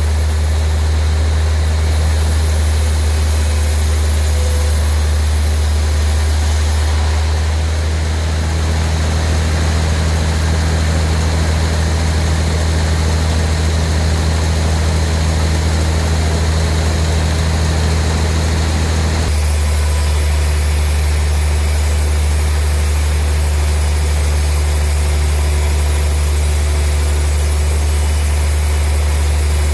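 Sawmill machinery running with a loud, steady, engine-like low hum and no distinct cutting strokes. The sound shifts abruptly twice, about a quarter and two-thirds of the way through.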